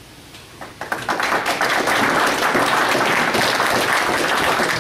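Audience applauding, many hands clapping, starting about a second in and carrying on steadily.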